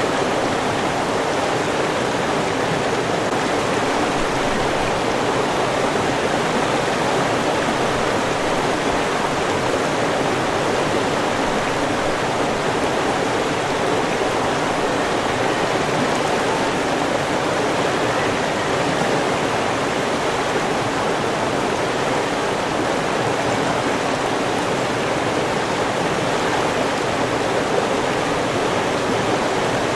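River water rushing and burbling in a steady, unbroken flow.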